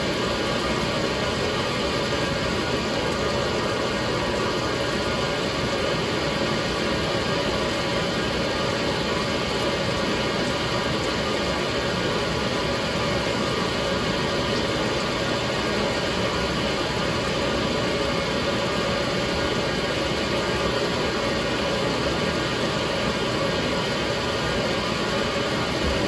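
2007 Whirlpool washing machine running through its permanent press cycle, a steady, even machine noise with no rhythmic breaks.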